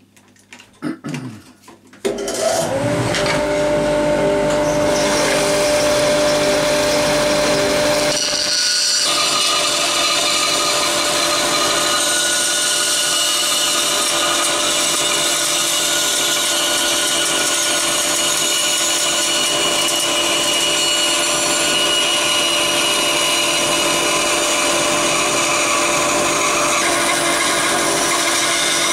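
A BAS 315 band saw is switched on about two seconds in and runs with a steady hum. From about nine seconds on its blade is cutting a curved outline out of a wooden board, adding a broad, hissing sawing noise.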